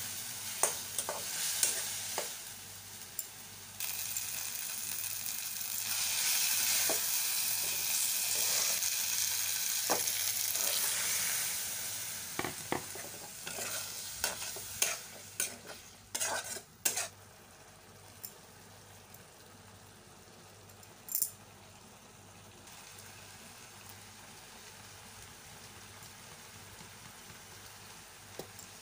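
Masala paste sizzling in a steel kadai as a spatula stirs and scrapes it, knocking against the pan again and again. About halfway through, once the boiled chickpeas and their liquid are in, the sizzle drops to a faint simmer with only the odd knock of the spatula.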